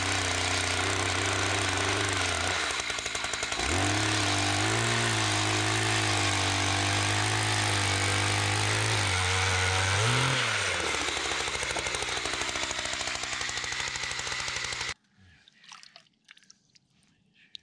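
Gas-powered ice auger's small two-stroke engine running as it bores a hole through lake ice. Its pitch dips about three seconds in, holds higher while it drills, flicks up once and then runs lower. It cuts off suddenly about fifteen seconds in, leaving faint handling sounds.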